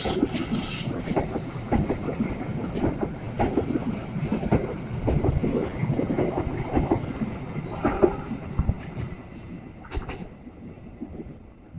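Argo Wilis passenger train coaches rolling past: steel wheels clattering over rail joints and points, with several short high wheel squeals, fading as the last coach moves away around the curve.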